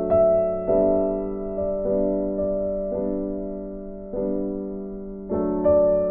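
Background music: a slow piano piece, its notes and chords struck about once a second and left to fade.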